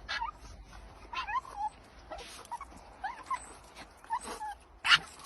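A dog whimpering in short, high, wavering whines, about four of them, with a louder sharp burst near the end.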